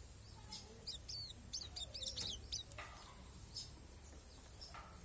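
Pleci palas Borneo white-eye singing faintly: a quick run of short, high chirping notes about a second in, then scattered single chirps over a low steady hum.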